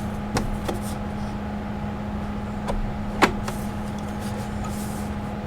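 A few sharp clicks and knocks of hardware being handled as a PCIe adapter card is fitted into the computer. The loudest click comes about three seconds in, over a steady low hum.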